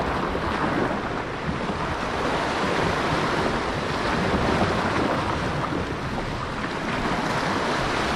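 Sea surf washing against a rocky shore, with wind on the microphone: a steady rushing noise.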